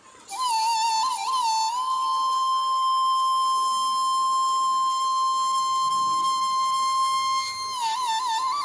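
Slow solo flute melody. It opens with quick ornamented turns, then holds one long steady note for about six seconds, and breaks into ornamented turns again near the end.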